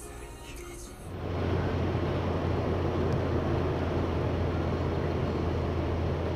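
Steady road noise inside a moving car at about 95 km/h: tyre noise and a low engine drone, starting abruptly about a second in.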